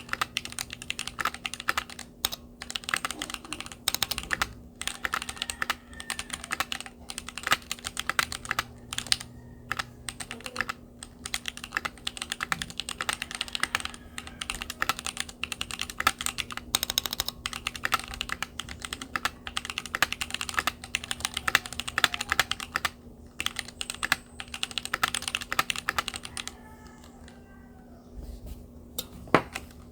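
Typing on a Keychron Q1 aluminium mechanical keyboard: fast, continuous key clacks, pausing for about three seconds near the end before resuming.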